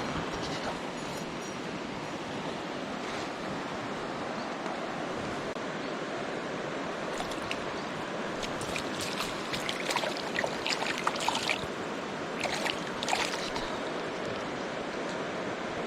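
Mountain stream water rushing steadily, with a cluster of short, sharp sounds over it around the middle.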